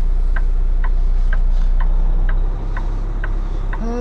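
Truck's turn signal clicking about twice a second inside the cab, over the steady low rumble of the idling diesel engine.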